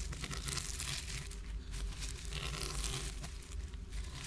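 Crinkling and rustling, as of plastic or paper being handled, in a continuous crackle with two brief lulls.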